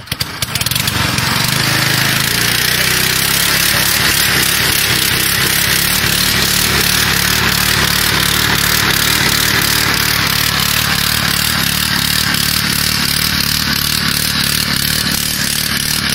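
Small single-cylinder petrol engine on a homemade buggy running steadily from about half a second in.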